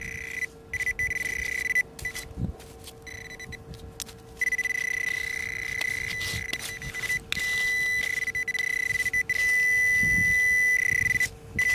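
Handheld metal-detecting pinpointer probing wet shingle and sand, sounding a steady high beep tone that cuts in and out as the tip moves. From about four seconds in the tone holds almost continuously, with brief breaks, as the probe closes in on the buried target.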